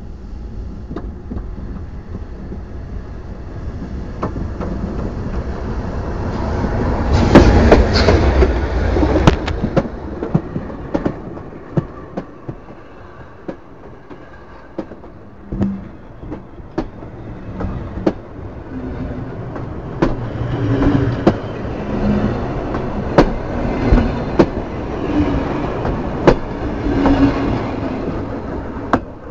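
Steam train rolling directly over the track, loudest about seven to ten seconds in, then a long run of sharp wheel clicks over the rail joints as the wagons pass above. The sound drops away right at the end as the train clears.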